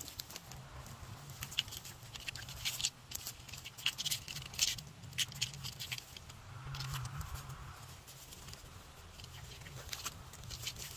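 A Jack Russell terrier's claws scratching and scrabbling at a pine trunk and the dry needles underfoot: a run of irregular crackles and clicks, thickest in the first half and again near the end.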